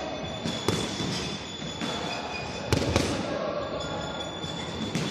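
Boxing gloves smacking into focus mitts: a few sharp hits, a quick pair near the start, another pair about three seconds in and one near the end, over a constant thin high-pitched tone.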